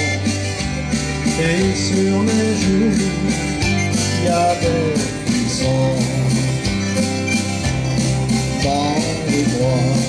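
Instrumental break of a country-style song: a Fender electric guitar played along with a backing track that has a steady beat, held bass notes and a gliding lead melody.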